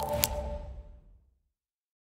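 The tail of an electronic intro jingle ringing out and fading, with one short click about a quarter second in. It dies away within the first second, and the rest is dead silence.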